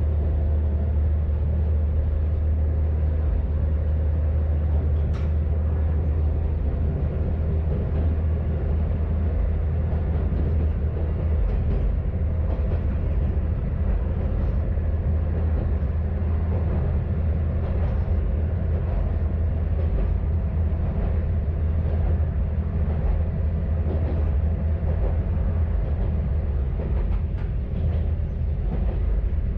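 Kanto Railway KiHa 532 diesel railcar running along the line, a steady low drone of engine and running gear with track noise. A single sharp click about five seconds in.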